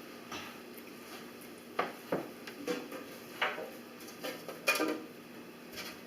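Light, irregular clatter and knocks of small items being handled and picked up during cleanup, about eight sharp clicks spread unevenly, the loudest near the end.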